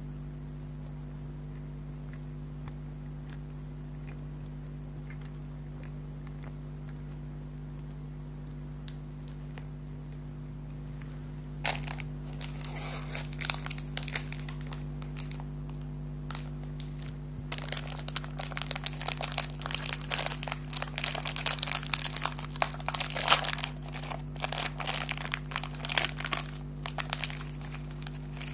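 Snack packaging crinkling and tearing in bursts as it is opened, starting about twelve seconds in and busiest in the last third, over a steady low electrical hum.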